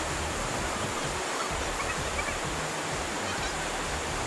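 Mountain river with a strong current rushing steadily.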